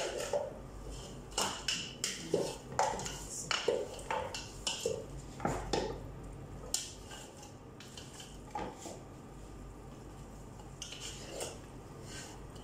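Wooden spoon knocking and scraping against a large metal pot as chunks of meat are stirred, in irregular clatters that thin out after about six seconds.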